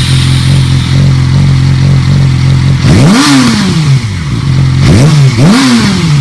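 2007 Yamaha R6's inline-four engine idling with no exhaust fitted, given two quick throttle blips about three and five and a half seconds in, each a rising then falling rev.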